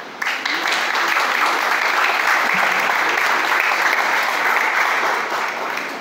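Audience applauding, breaking out sharply just after the start and dying away near the end.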